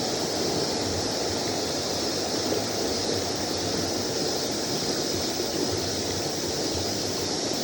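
Mountain stream water rushing over rocks, a steady even rush.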